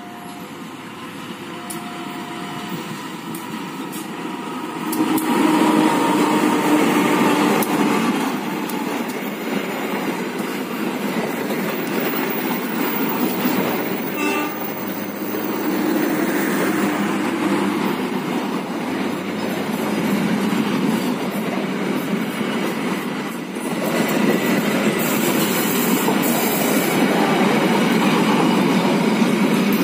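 A passenger train hauled by a CC 201 diesel-electric locomotive approaches and passes close by. Near the start there are two short, faint horn notes. About five seconds in the locomotive's engine grows loud, and then the coaches rumble and clatter past over the rails.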